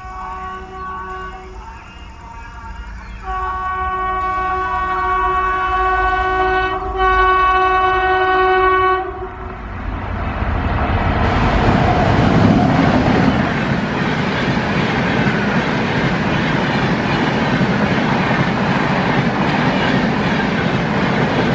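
Indian Railways electric locomotive's multi-note horn: a shorter sounding, then a long blast of about six seconds. About nine and a half seconds in, the horn gives way to the steady rush and clickety-clack of a passenger train's LHB coaches passing close at speed, which runs on to the end.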